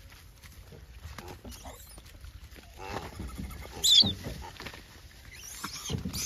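A troop of gray langurs on and around a car: scattered taps and scuffles as they move about, with brief rough calls around three and six seconds in and a short, high squeal just before four seconds.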